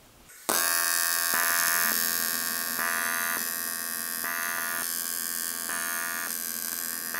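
TIG welding arc on an aluminium cylinder head, struck about half a second in and running as a steady AC buzz at around 175 amps, swelling in a regular beat about every second and a half.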